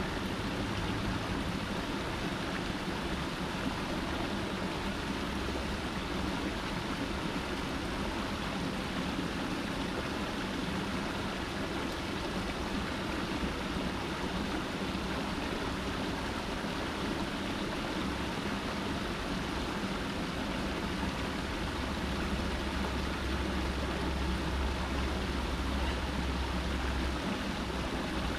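Water from a small cascade pouring steadily over rocks into a pool, a continuous splashing rush. A low rumble underneath grows stronger for a few seconds near the end.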